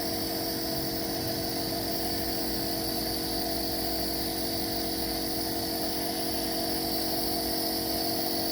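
Small electric compressor of a nebulizer running steadily, a constant hum with a hiss of air above it, as it nebulizes medicine to loosen a baby's phlegm from a cough and cold.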